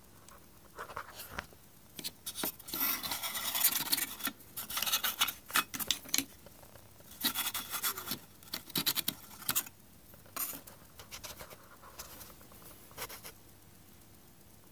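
Irregular bursts of scratching and rubbing on a hard surface, densest between about three and ten seconds in, then thinning to a few light scrapes.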